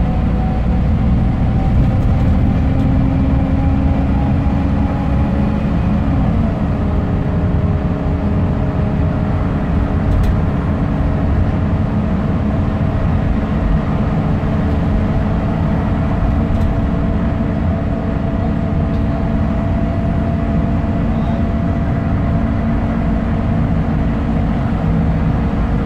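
Scania K270UB bus's rear-mounted 9.3-litre five-cylinder diesel and driveline heard from inside the saloon while under way, a loud rumble with road noise. A whining tone climbs slowly, steps down once at a gear change about six seconds in, then climbs slowly again.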